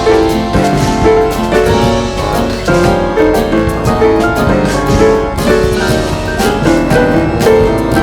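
Background music: a piano-led instrumental passage with a steady beat.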